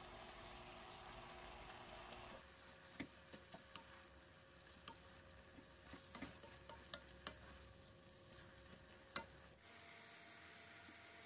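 Shishito peppers and tuna stir-frying in a pan: faint steady sizzling, then, from about two seconds in, a run of about a dozen sharp clicks of a utensil knocking against the pan while stirring, and steady sizzling again near the end.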